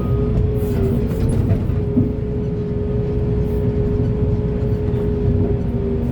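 Heavy diesel earthmoving machinery running steadily, with a constant whine held over the engine and a single short knock about two seconds in.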